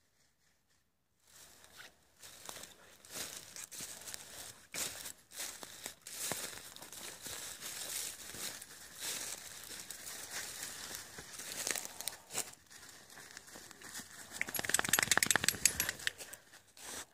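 Dry fallen leaves rustling and crunching, starting about a second in. Near the end comes a louder burst of rapid scratching as a dog digs into the leaf litter.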